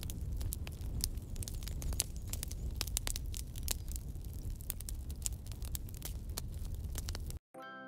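Crackling, static-like noise over a low rumble, with many scattered sharp pops; it cuts off abruptly near the end.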